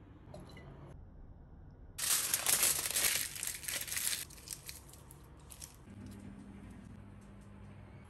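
Aluminium foil being scrunched and crumpled by hand around a garlic bulb: a dense crinkling for about two seconds, then scattered lighter crinkles. A faint low hum starts about six seconds in.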